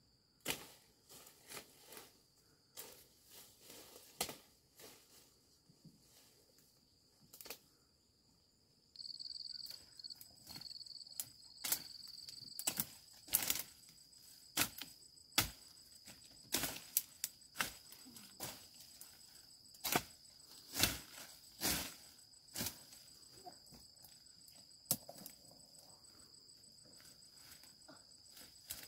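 Irregular sharp knocks, snaps and rustles from digging with a hoe and pushing through cassava stems, over a steady high insect drone that gets louder about nine seconds in.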